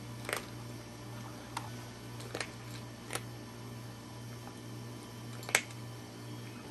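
A cat crunching dry kibble from a ceramic bowl: about five short, sharp crunches at irregular intervals, the loudest a little past five seconds in, over a steady low hum.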